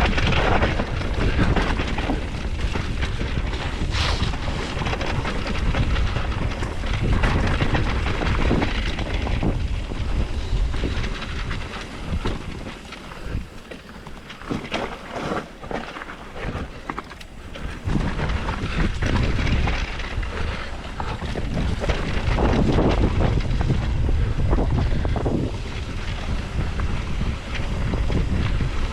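Mountain bike descending a trail: wind buffeting the microphone over tyre roar and the rattle and knocks of the bike over rough ground. It eases off and goes quieter for a few seconds in the middle, then picks up again.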